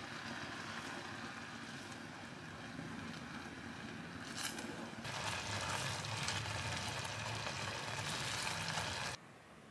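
Stovetop cooking noise as blueberry jam cooks in a saucepan and is stirred with a wooden spatula: a steady noise with a single knock about four and a half seconds in. The noise gets louder about five seconds in and cuts off abruptly near the end.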